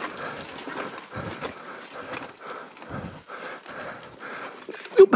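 A mountain biker panting in a quick rhythm while pedalling slowly up slickrock, with the bike knocking and rattling over the rock.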